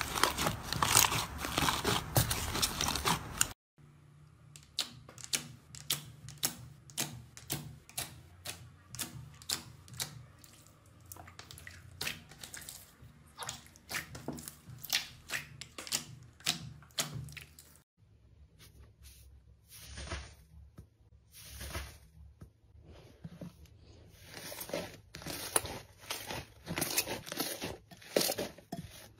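Slime being worked by hand: a dense crackling squish as a thick slime is pulled apart, then a run of sharp sticky pops and clicks as slime is pressed and squeezed, coming faster near the end.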